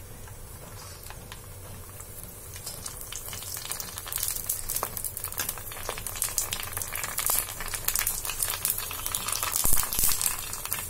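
Puris deep-frying in hot oil: a steady sizzle with dense crackling that grows louder a few seconds in, and a single knock near the end.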